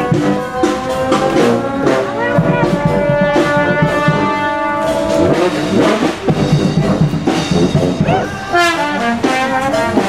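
Street brass band playing: horns hold a long note through the first half while other parts move over it, drums strike underneath, and a quick rising run of notes comes near the end.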